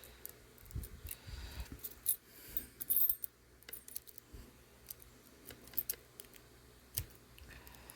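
Lock pick and tension wrench working in a Defiant padlock's keyway: faint irregular metallic clicks and scrapes, with a brighter clink of metal about two and three seconds in.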